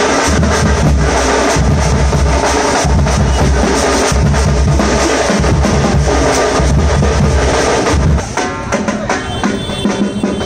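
Loud live drum band music with a heavy, pulsing bass drum and snare rolls; it dips a little about eight seconds in.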